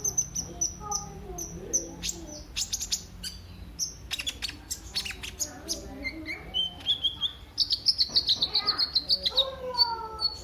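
Kolibri ninja sunbird singing: a busy string of quick high chirps and twitters, with a fast run of repeated high notes near the end.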